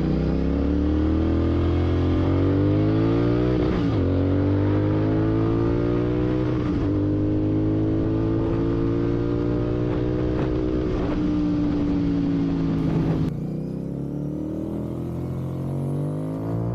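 Royal Enfield Continental GT 650's parallel-twin engine running loud through a Red Rooster aftermarket exhaust, its pitch slowly rising and easing off with light throttle changes. The sound changes and drops in level about 13 seconds in.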